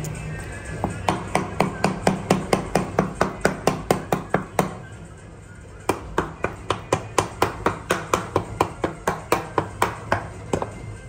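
Rapid, even knocking: two runs of sharp strikes at about four to five a second, broken by a pause of about a second near the middle.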